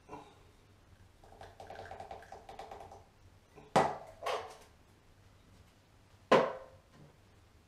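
Powdered baking soda tapped out of a plastic tub into a small plastic pot: a quick, ringing rattle of tapping for a couple of seconds. Then three sharp knocks of containers being handled and set down on a hard surface, the first and last the loudest.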